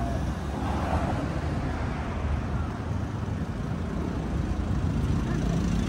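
Steady city road traffic noise, with cars passing close by and a low rumble.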